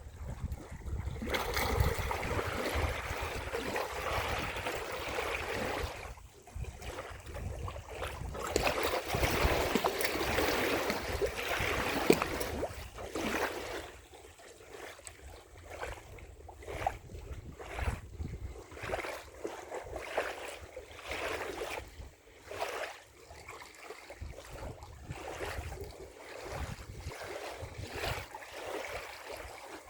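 Waves washing in against a shore, with wind buffeting the microphone. In the first half the surges are heavier, and there is a low rumble from the wind. After about fourteen seconds the water settles into smaller, irregular splashes and laps.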